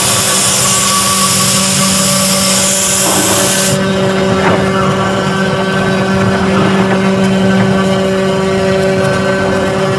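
CNC router spindle running with a steady hum while its bit cuts a rotating block of foam on the 4-axis rotary device. A bright hiss from the cutting stops abruptly about four seconds in, and the spindle hum carries on.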